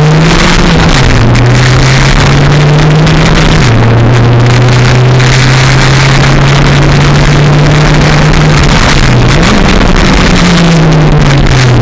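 Stock Toyota 4E-FTE turbocharged four-cylinder engine running hard under load, heard from inside the car, its revs holding fairly steady with drops about a second in and near four seconds. The revs rise briefly past nine seconds and then fall away near the end.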